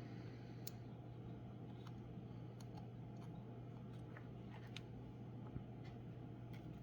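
Quiet room tone: a steady low hum with a few faint, scattered light clicks, typical of small parts being handled on a workbench.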